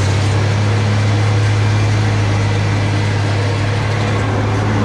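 Old tractor engine idling steadily with a deep, even hum.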